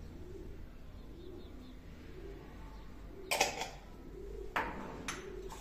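Homing pigeons cooing in low, repeated phrases, with a few sharp clicks about three and four and a half seconds in.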